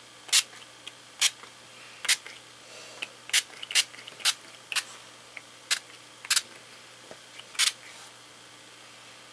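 About ten short hisses from a fine-mist pump spray bottle of surface spray ink, each a quick single spritz, coming at uneven intervals.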